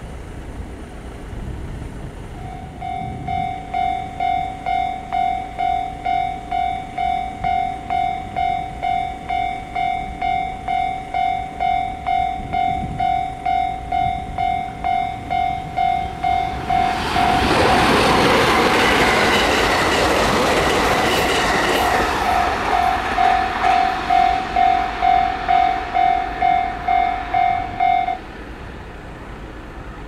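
Japanese level-crossing warning bell ringing, an electronic clang repeating about twice a second; it starts about two and a half seconds in and stops shortly before the end. Midway an electric train passes the crossing, loud for about five seconds while the bell keeps ringing.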